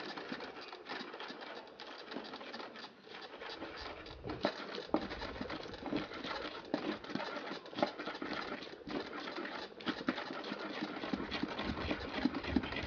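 Wooden pestle crushing and grinding chopped onions and green pepper against the inside of an earthenware grinding bowl (asanka): a continuous run of irregular scraping and tapping strokes.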